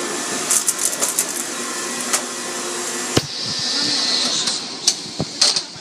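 Automatic car wash heard from inside the car: a steady rush of machinery and water spray on the body and windshield. The spray hiss swells about three and a half seconds in, and several sharp knocks come in the second half.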